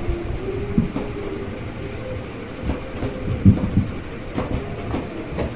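A flat iron sliding and knocking along a folded fabric strip on a worktable, giving irregular dull thumps, the loudest about three and a half seconds in, over a faint steady hum.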